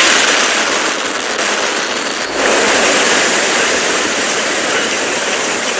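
Rushing water of a cartoon waterfall: a loud, steady hiss that swells a little about two seconds in.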